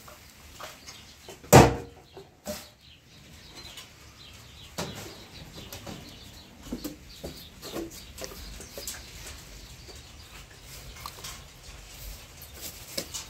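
Aluminium cookware handled at a gas stove: one sharp metal clank about one and a half seconds in, the loudest sound, then a few lighter knocks and clicks of pot, lid and ladle.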